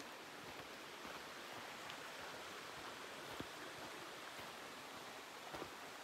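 Faint, steady rush of flowing mountain-stream water, with a couple of light clicks.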